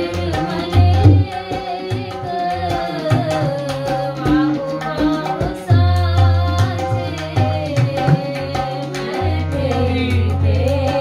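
Sikh kirtan: a woman's voice sings a shabad over a harmonium, with tabla played throughout. The tabla's bass drum booms deep and low in stretches.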